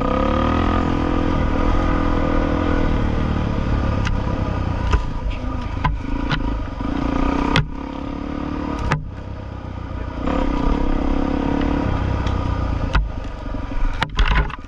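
Suzuki DR650SE's single-cylinder four-stroke engine running on a dirt trail. The throttle eases off about eight seconds in and picks up again about two seconds later. Sharp knocks and clatter from the bike come over the bumps, several close together near the end.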